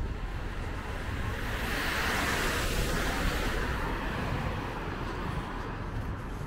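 A car passing on the street, its tyre noise swelling to a peak about two to three seconds in and then fading, over a steady low rumble of traffic.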